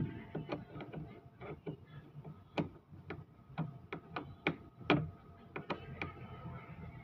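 Socket ratchet wrench clicking in a run of sharp, uneven clicks, several a second, as a bolt is worked while fitting a car radiator.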